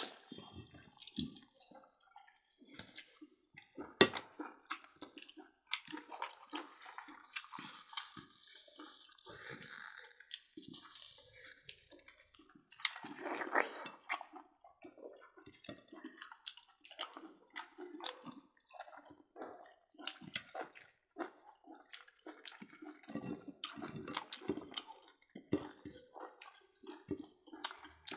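Close-miked eating: wet chewing, lip smacks and squelches of people eating roasted pork by hand, as irregular clicks with a louder smack about four seconds in.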